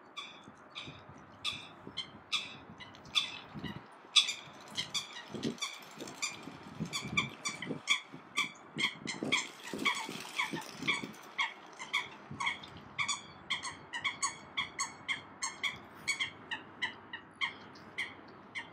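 Waterbirds on a lake calling: a long run of short, sharp calls, about three a second, with softer low sounds under them in the first half.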